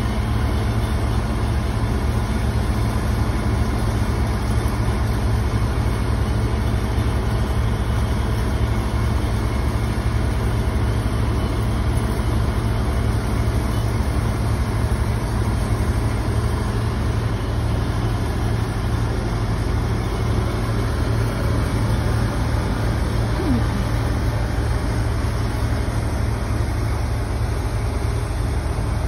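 Large truck-mounted crane's diesel engine running at a steady drone while it hoists a steel roof truss.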